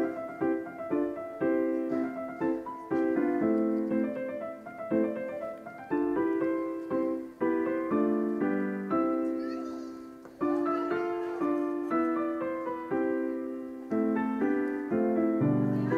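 Background piano music: a steady run of struck notes and chords, each one fading after it is played.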